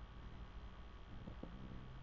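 Cocker spaniel snoring softly in its sleep: one faint, low snore starts a little past a second in, over a steady low hum.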